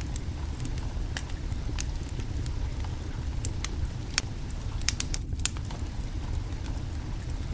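Wood fire crackling under a cooking pot: irregular sharp pops and snaps over a steady low rumble.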